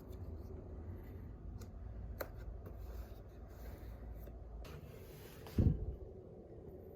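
Faint rustling and handling sounds over a low hum, with one dull thump about five and a half seconds in.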